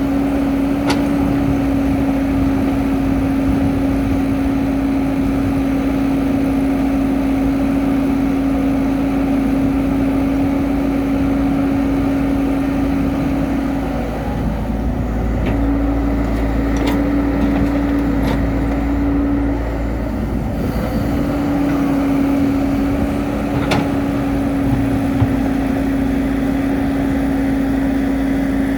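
Excavator's diesel engine running under work with a steady droning hum that breaks off briefly twice around the middle, with a few sharp knocks.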